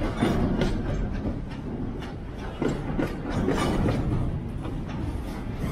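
Footsteps crunching on grassy track ballast at a walking pace, roughly two steps a second, over a steady low rumble.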